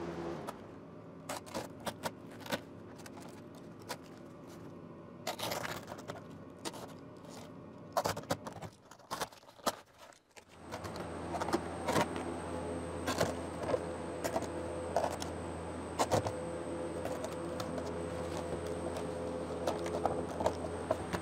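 Utility knife slicing through plastic house wrap on a model wall, with crinkling, scraping and sharp ticks as the loose sheet is cut and pulled away. A steady low hum comes in about halfway through.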